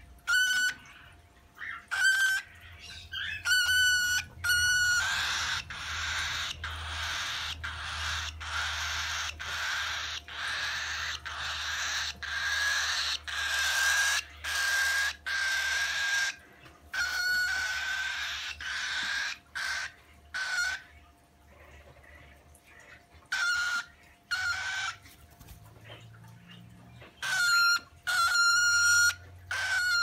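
Lutino cockatiel vocalising: short whistled chirps repeated every second or so, with a long stretch of continuous chattering through the middle.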